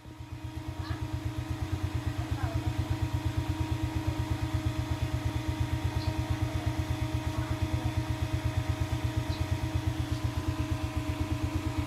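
Suzuki Raider R150's single-cylinder four-stroke engine idling steadily: an even, low pulsing with a faint steady whine above it, fading in over the first second.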